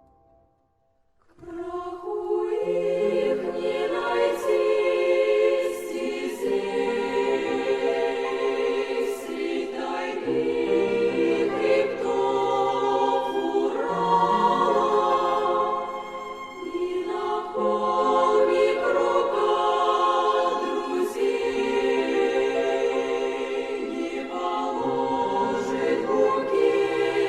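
Choir singing a slow piece in harmony, with long-held chords over a low bass line; it begins about a second and a half in, after a brief silence.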